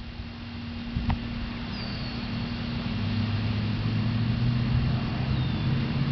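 A steady low engine hum that grows slowly louder, with a few faint high, falling peeps from mallard ducklings.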